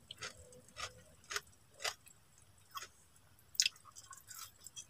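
Close-up mouth sounds of eating dried milkfish (daing na bangus) by hand: chewing and lip smacks heard as a string of short, sharp clicks, roughly one every half second, the loudest about three and a half seconds in.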